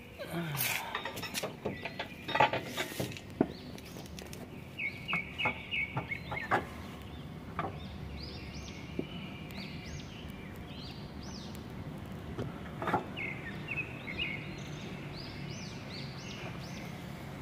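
Scattered knocks and clicks of hands and tools on the front suspension under the car while stabilizer-bar bushings are being fitted, with birds chirping repeatedly from about five seconds in.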